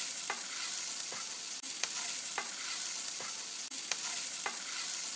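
Fusilli pasta in masala sauce sizzling in a stainless steel pan while a metal spoon stirs it. Short clicks of the spoon against the pan come roughly every half second to second over a steady frying hiss.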